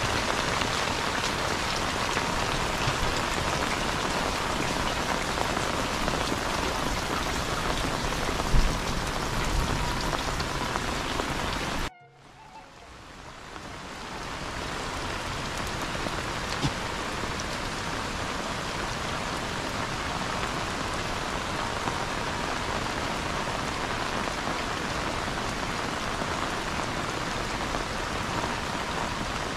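Heavy rain pouring steadily, with a single thump about eight seconds in. The sound cuts out suddenly near the middle and fades back up to the same steady downpour.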